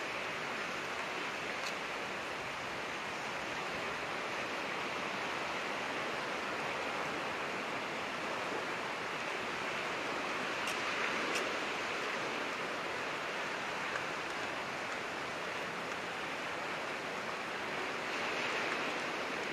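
Steady rushing noise of sea surf on the shore, swelling a little about halfway through and again near the end.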